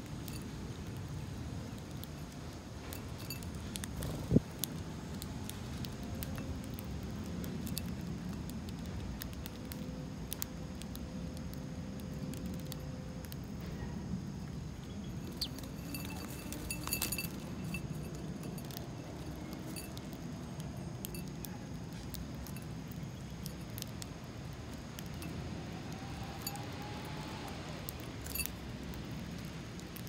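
House sparrows pecking seed from a ceramic bowl: scattered light clicks and clinks of beaks on the bowl, with a sharper knock about four seconds in and a quick flurry of clicks around the middle as birds flutter at the bowl. A steady low rumble runs underneath.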